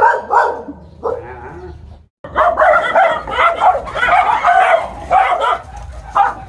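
A dog yelping and whining in high, rising-and-falling cries. After a sudden cut about two seconds in, a dog barks and yelps again and again.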